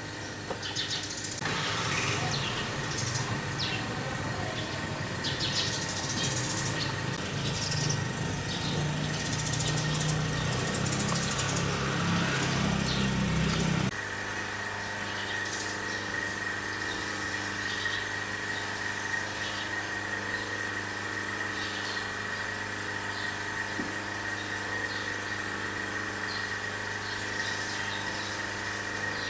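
A motor running with a steady hum. It cuts off sharply about halfway through and gives way to a quieter, steady hum with a thin high whine.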